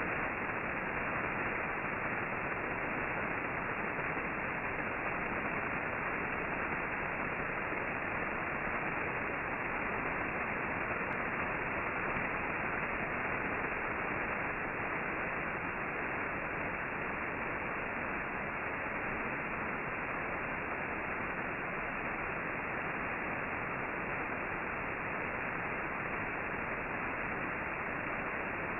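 Steady HF radio band static from a ham transceiver: an even hiss with no high end and no Morse tones in it.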